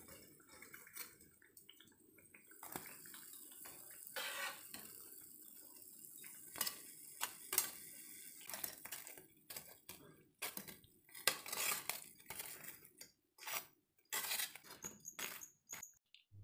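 A metal utensil clinking and knocking against a frying pan, the strikes coming thicker in the second half, over the faint sizzle of bread slices frying in oil.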